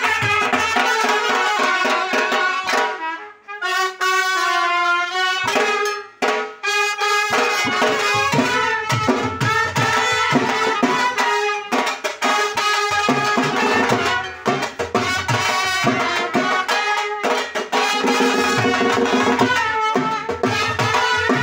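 Live brass-band music: trumpets and other horns playing a melody over a two-headed barrel drum (dhol) and a second drum struck in a steady beat. About three seconds in, the drums drop out for a couple of seconds, leaving the horns on their own, before the beat comes back.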